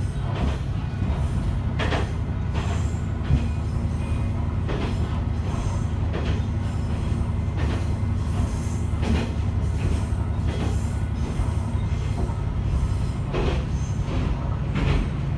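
Interior of a diesel railcar under way: a steady low engine drone, with the wheels knocking over rail joints every one to three seconds.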